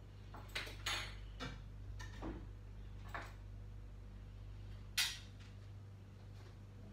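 Small objects being picked up and set down on a wooden dresser top: scattered light knocks and clinks, the sharpest about five seconds in, over a steady low hum.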